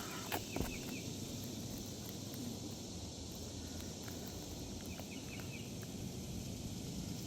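Steady outdoor background with a few faint bird chirps, short and repeated, once near the start and again about five seconds in. Two light taps come about half a second in.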